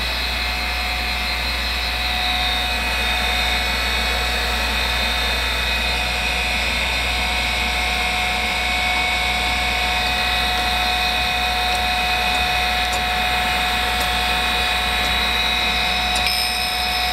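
Chevalier FSG-618 surface grinder's 1 HP spindle running with its grinding wheel spinning free, a steady hum with a steady high tone. The wheel head is being lowered toward the workpiece to touch off.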